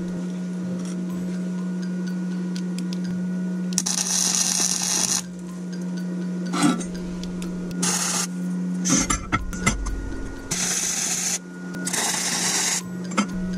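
EENOUR MIG120L 100 V gasless flux-core semi-automatic welder laying several short tack welds: about five separate bursts of arc noise, the longest about a second and a half, over a steady low hum.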